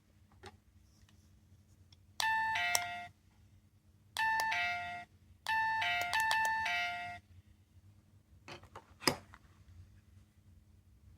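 Small electronic capsule toy playing a two-tone ding-dong doorbell chime three times, a high note dropping to a lower one, with the third chime longer. A few sharp clicks follow near the end.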